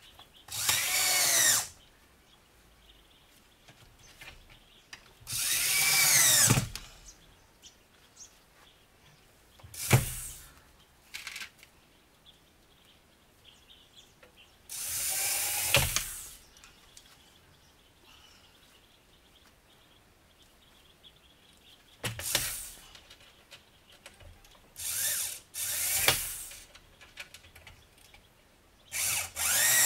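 Handheld power tool run in short bursts at the sheet-metal wall: about eight runs of a second or so each, its pitch sliding down within each run, with quiet gaps between.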